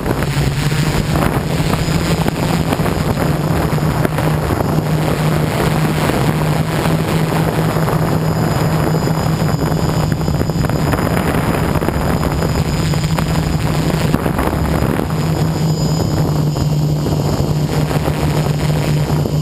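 MikroKopter quadcopter's electric motors and propellers running in flight, heard from a camera mounted on the craft: a steady, loud hum over a rushing noise.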